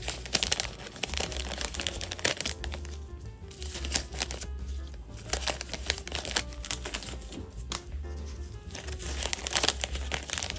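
Clear OPP plastic bags crinkling and rustling in irregular bursts as small sandwich cookies are slipped into them, over background music with a steady bass line.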